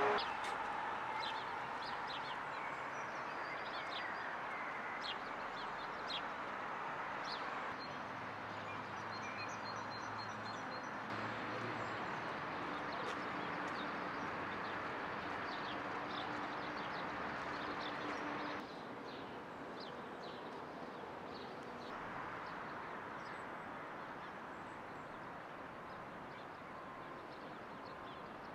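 Outdoor city ambience: a steady distant traffic hum with small birds chirping in short, scattered calls. The background level jumps abruptly a few times.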